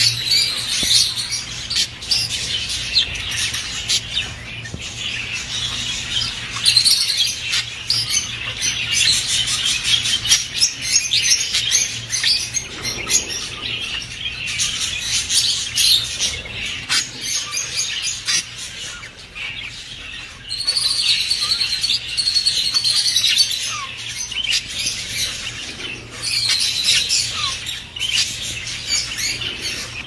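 Several budgerigars chattering and warbling together: a dense, continuous stream of fast chirps, clicks and squeaky twitters, over a faint steady low hum.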